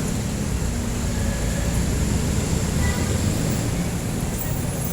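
Busy street traffic dominated by jeepney diesel engines running, a steady, loud low rumble with no break.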